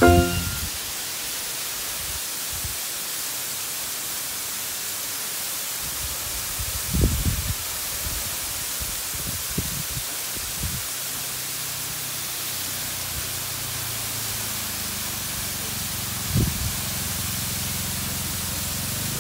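Waterfall rushing: a steady, even hiss of falling water, with a few short low thumps on the microphone.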